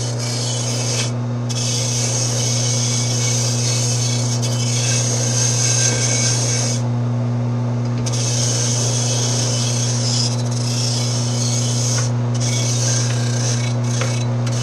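A motor-driven wire brush runs steadily, with a constant low hum, while it scrubs matted grass off a steel lawn tractor mower blade. The hissing scrubbing stops briefly a few times as the brush is lifted off and put back. The blade is being cleaned so that it can be balanced and sharpened.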